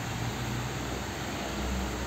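Steady background hum and hiss of a motorcycle service workshop, with no distinct event.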